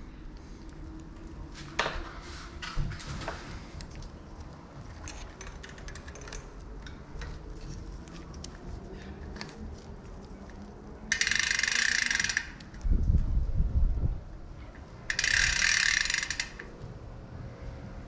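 Small metallic clicks of a bicycle chain being threaded through the rear derailleur, then two buzzing bursts about a second and a half each from the DT Swiss 240 rear hub's freewheel ratchet as the drivetrain is turned, with a dull low rumble between them.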